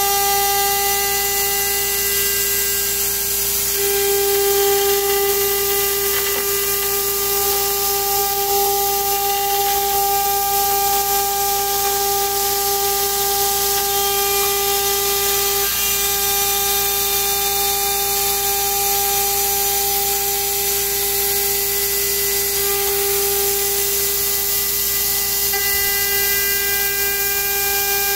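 CNC router spindle running at a steady high-pitched whine while a small end mill cuts through aluminium plate, with a steady hiss underneath.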